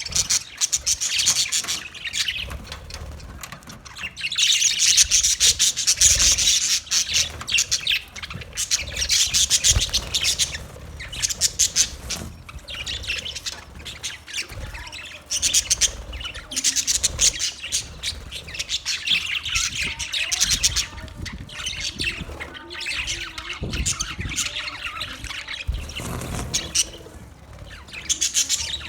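A group of small pet parrots chirping and chattering continuously with rapid, high chirps and squawks, swelling into louder spells every few seconds.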